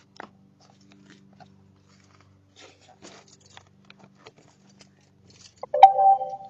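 Faint scattered clicks over a low steady hum, then about six seconds in a click and a video doorbell's chime: a loud, steady tone lasting under a second.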